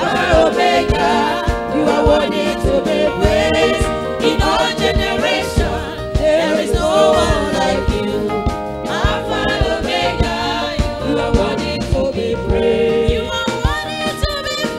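Live gospel music: a choir and lead singer singing over a band with a steady beat.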